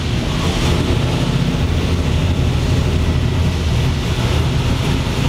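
Large supercharged methanol V8 running steadily and loudly under load on an engine dyno. It carries a very big camshaft on low compression, and in this run it makes significantly lower horsepower after fuel was taken out of one cylinder.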